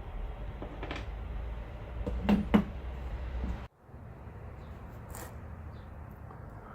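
Two sharp metal knocks about a quarter second apart: a hammer striking a drift to knock loose the spanner ring on a Mopar power-steering gearbox. The sound cuts off abruptly soon after.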